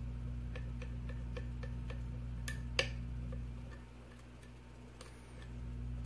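Pin-tumbler lock cylinder being picked: light metallic clicks of a hook pick working the pins, several a second, with two sharper clicks about two and a half seconds in, then quieter.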